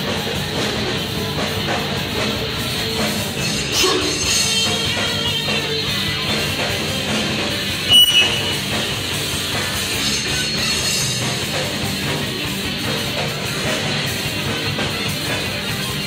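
Hardcore metal band playing live: electric guitars, bass and drum kit in a dense, steady wall of sound. A single sharp knock stands out about halfway through.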